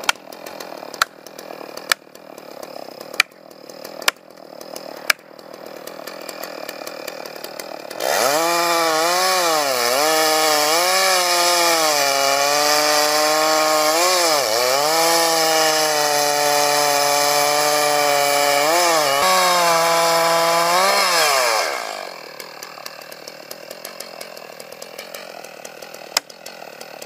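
A few sharp knocks about once a second. Then a large two-stroke chainsaw cuts through the tree for about fourteen seconds, its engine note dipping several times as the chain loads up in the cut. It drops back to a quieter idle, and one more sharp knock comes near the end as the axe strikes.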